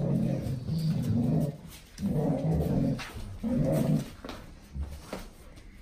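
Golden retrievers growling in a towel tug-of-war: three low growls of about a second each, followed by a few light clicks and scuffles.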